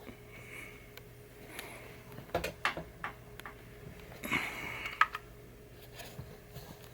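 A few scattered light clicks and knocks of hands handling gear at close range, with a brief rustle a little past the middle, over a faint steady hum.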